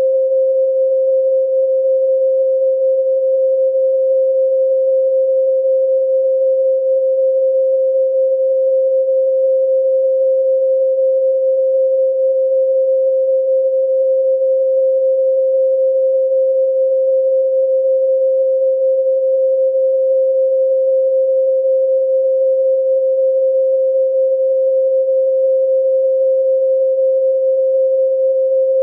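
A steady 528 Hz pure sine tone, the Solfeggio 'MI' frequency, held at one pitch and level without a break.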